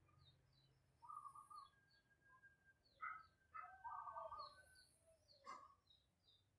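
Birds chirping: many short, quick high chirps that fall in pitch, scattered throughout, with a few louder, lower calls about a second in and again between three and four seconds in.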